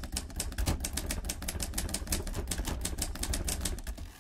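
Sound-design effect of rapid, evenly spaced clicking, about ten clicks a second, like fast typewriter keys, over a steady deep bass drone.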